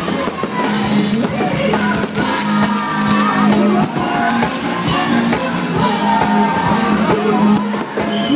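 Loud music with drums and singing, playing without a break.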